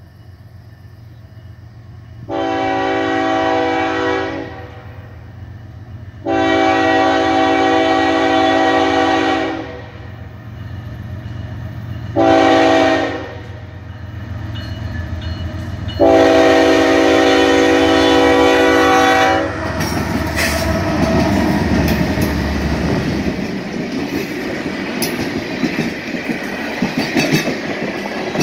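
BNSF freight locomotive horn sounding the grade-crossing signal, two long blasts, a short one and a long one, over the rising rumble of the approaching diesel engines. The locomotives then pass close by, and empty ethanol tank cars roll past with their wheels clicking over the rail joints.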